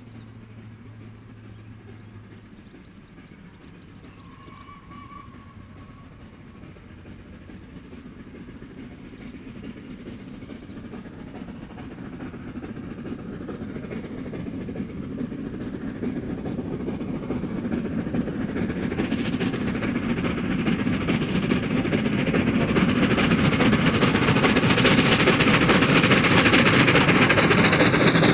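The three-cylinder LNER A3 steam locomotive Flying Scotsman approaching under steam, a brief whistle sounding about four seconds in, its sound growing steadily louder until it passes. Near the end the coaches' wheels clatter over the rail joints as the train goes by.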